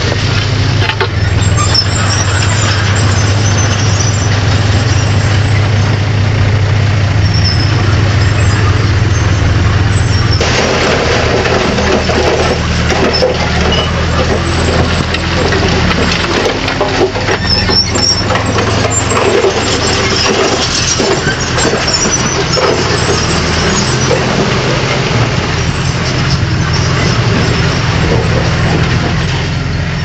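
Heavy diesel construction machine running steadily with a low engine drone; about ten seconds in the drone eases and a busier rattling, clattering noise takes over.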